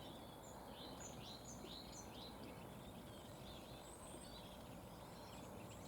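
Faint birdsong: a string of short, high chirps, thickest in the first two seconds and thinning out after, over a quiet outdoor background hiss.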